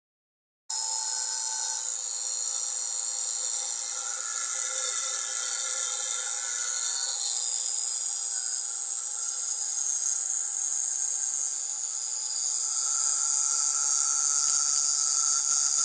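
Small electric motor spinning the propeller of a scale-model Japanese Zero fighter, a steady high-pitched whirring hiss that starts abruptly just under a second in.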